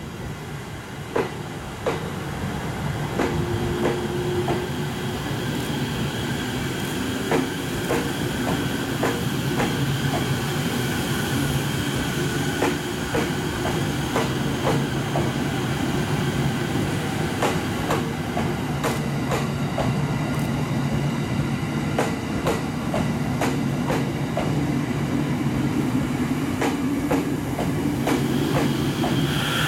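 JR East E231 series electric train moving slowly past, its wheels clicking irregularly over the rails and its traction equipment humming. Near the end a whine starts, rising slowly in pitch as the train gathers speed. Wind buffets the microphone throughout.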